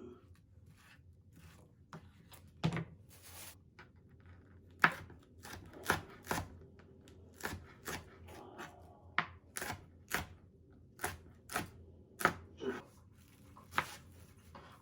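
Knife chopping on a cutting board: separate, unevenly spaced strokes, roughly one or two a second.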